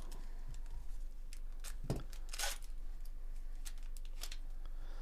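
Bowman Chrome trading cards being flicked and slid past one another in gloved hands: scattered light clicks, with a brief swish about halfway through, over a low steady hum.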